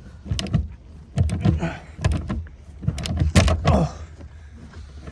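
Hand ratchet wrench clicking in short bursts of a few strokes, with metal clanks as bolts are worked loose.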